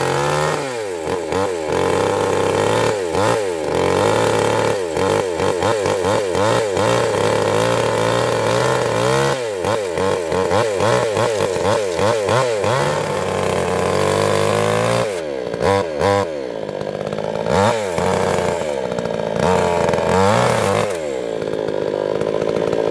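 Oxford OXSW5800 two-stroke gasoline chainsaw cutting through a small tree trunk, the engine revving up and down in quick throttle pulses as it bites into the wood. It drops toward idle about two-thirds of the way through, then revs hard again.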